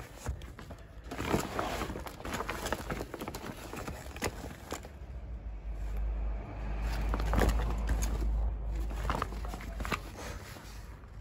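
Handling of a nylon bag holding lawn bowls: fabric rustling with a run of small knocks and clicks, then a low rumble of handling noise for a few seconds from about six seconds in.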